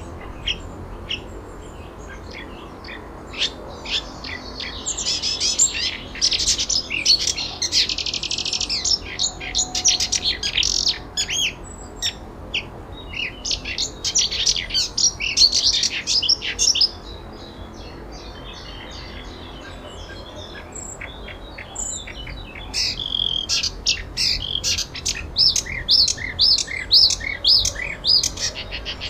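Songbirds chirping and trilling in rapid runs of short high notes, over a steady low background rumble; the calls thin out for a few seconds past the middle, then pick up again.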